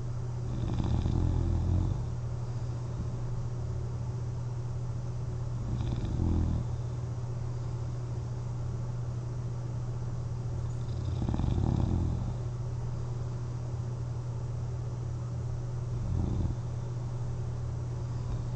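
A person snoring while wearing a CPAP mask and lying on their back: four snores, one about every five seconds, over a steady low hum.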